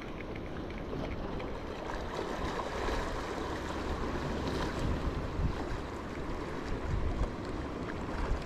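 Wind buffeting the microphone over the sea washing against a rocky shore: a steady rushing noise with a low rumble.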